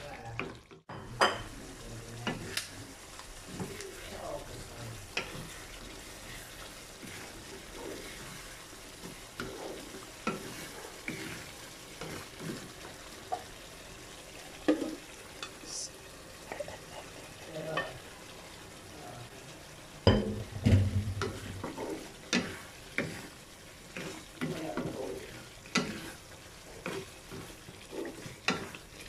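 Wooden spatula stirring and scraping through pork and green beans in a thick coconut-milk sauce in a nonstick wok, over a steady sizzle as the sauce cooks down. A louder clatter comes about twenty seconds in.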